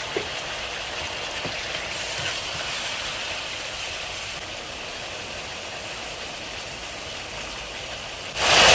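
Tomato chutney simmering in a frying pan, a steady hiss with a couple of faint knocks in the first two seconds. Near the end a much louder hiss cuts in suddenly.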